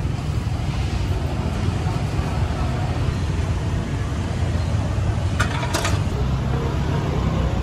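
Steady low rumble of street traffic and motorbike engines, with faint voices and two short clicks a little past halfway.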